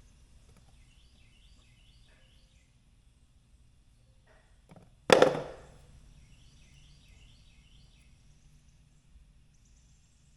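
A single sharp, loud knock about halfway through that rings and fades over about a second, against a quiet background with faint, repeated high chirping.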